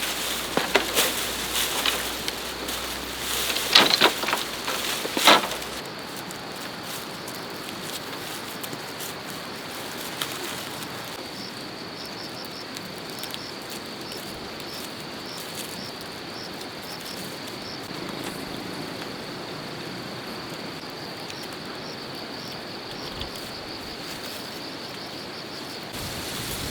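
Insects chirping steadily in a high, thin drone, with small regular chirps running through it. A handful of sharp knocks and rustles come in the first few seconds.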